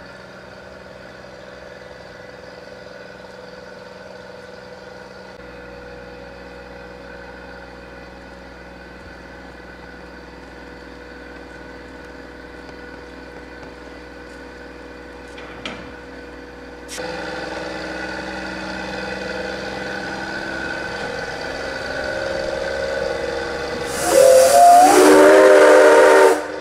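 A steady mechanical hum with several even tones, joined by a hiss about two-thirds of the way through. Near the end the C12 167 steam locomotive's whistle blows once for about two and a half seconds, sliding up in pitch as it opens.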